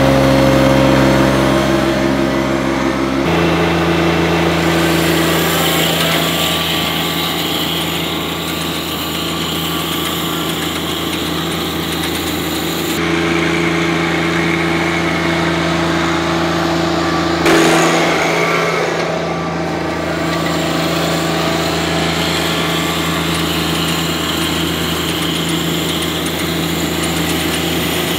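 John Deere 1025R compact tractor's three-cylinder diesel engine running steadily. It is first heard close up and stationary, then after an abrupt change about three seconds in it runs at a higher engine speed while the tractor drives across the lawn.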